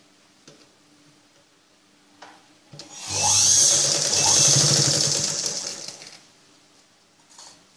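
Electric sewing machine running a seam for about three seconds, starting a few seconds in and stopping before the end, as it stitches a sleeve onto the bodice at the armhole. A few soft clicks of fabric handling come before it.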